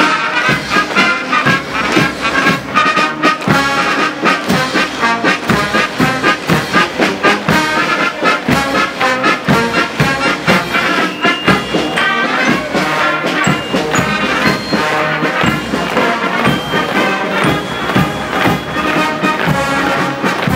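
Military brass band playing a march, with a steady beat of about two a second.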